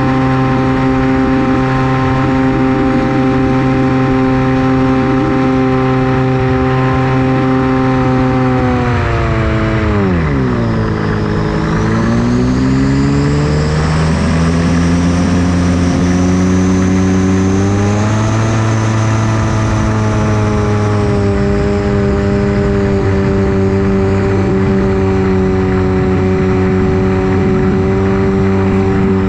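Electric motor and propeller of a Versa Wing flying wing running steadily. About nine seconds in the throttle comes off and the pitch drops sharply, then it climbs back over several seconds to a steady run a little lower than before.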